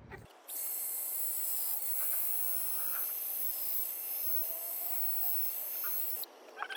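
Electric drill spinning a buffing pad against a plastic headlight lens with restorer polish: a steady high-pitched whine and hiss that starts about half a second in and cuts off suddenly after about six seconds.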